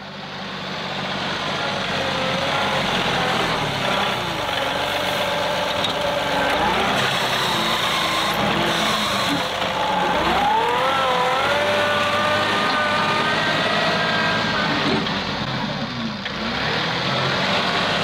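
John Deere 2038R compact tractor's three-cylinder diesel running under load as it pushes dirt with its front loader. A whine rises and falls in pitch over the engine as the tractor drives back and forth.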